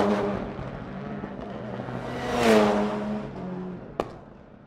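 Car engine sound effect: two swells of revving, each building to a peak and fading, the second about two and a half seconds in, followed by a single sharp click near the end.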